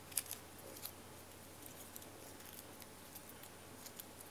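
Faint handling of a coiled iPhone charging cable as its paper wrap is peeled off: light crinkling and a scatter of small sharp clicks, the loudest two in the first second.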